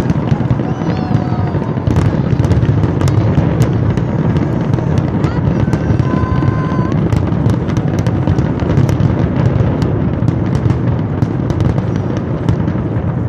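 Large fireworks display: a continuous loud din of bursting shells, thick with many sharp crackles and pops.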